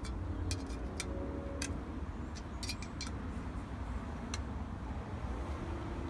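Small sharp clicks of metal parts being handled as an AC recharge hose's tap valve is screwed onto a can of R134a refrigerant, over a steady low rumble.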